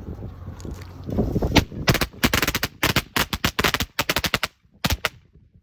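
Fireworks going off in a rapid, crackling string of sharp bangs that stops about five seconds in.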